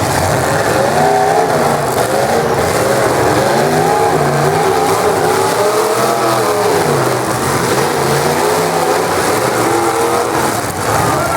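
Several full-size demolition derby cars' engines revving up and down at once, their overlapping pitches rising and falling as the cars accelerate and back off.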